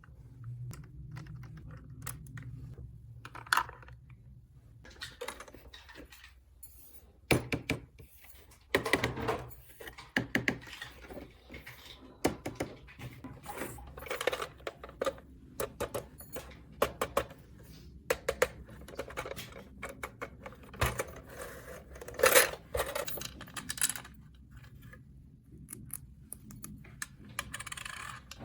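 Small plastic toy pieces clicking and clattering as they are handled, in irregular runs of light taps and knocks.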